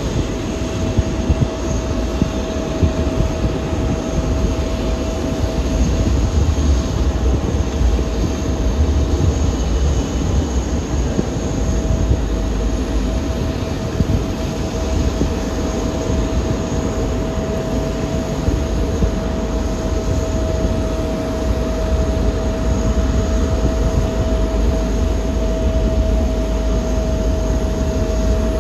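Jet aircraft engines running steadily: a constant whine over a low rumble, holding the same pitch throughout.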